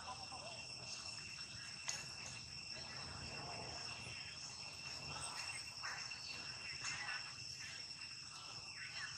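Insects, crickets or cicadas, keeping up a steady high-pitched drone, with faint short calls or voices underneath.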